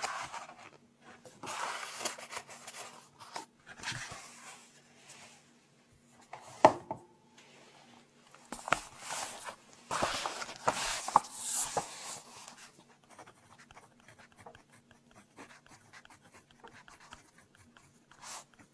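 Close-miked paper and book handling: rustling and rubbing, with a sharp tap about a third of the way in and a few clicks a little later, then quieter faint crackles.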